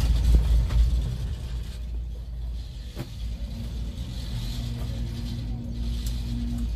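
Steady low rumble and hum of a cable-car cabin running up its cable, heard from inside the cabin. It is louder in the first second, and a faint steady hum tone joins it from about four seconds in.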